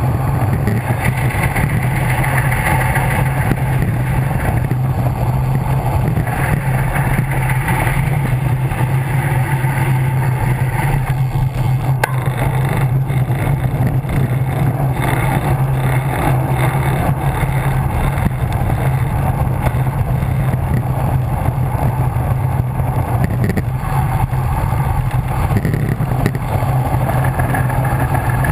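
Steady, loud wind rush buffeting the microphone of a bicycle-mounted camera on a fast road-bike descent.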